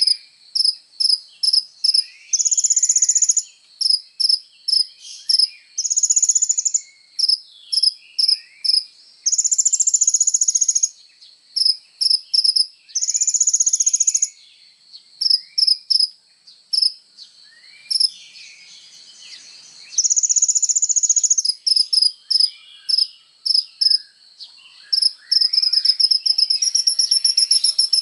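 A kolibri ninja sunbird singing vigorously: a fast string of very high, sharp chirping notes broken by buzzing trills of about a second and a half, five times. Fainter, lower sweeping calls sound behind it.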